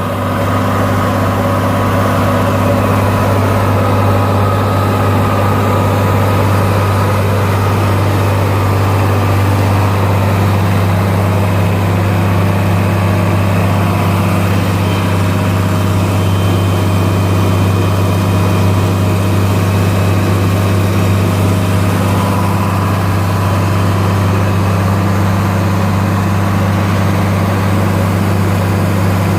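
John Deere 4020 tractor's newly installed six-cylinder engine running steadily under load, powering a VRX grain vac during its break-in.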